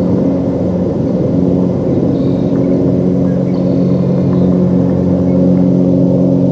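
Steady low mechanical hum with a rumble, a running engine or motor, holding several steady low pitches.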